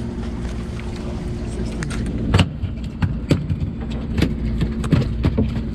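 Boat engine running steadily with a low hum. From about two seconds in, irregular sharp knocks and thumps sound over it, several a second.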